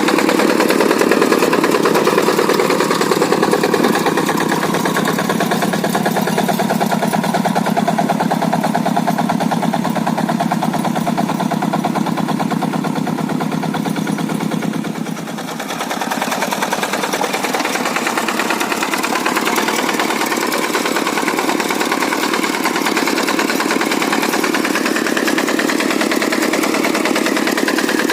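Kubota single-cylinder diesel engine of a Quick G100 two-wheel hand tractor running steadily with a rapid chugging while levelling hard soil. The sound dips briefly about halfway through, then runs on.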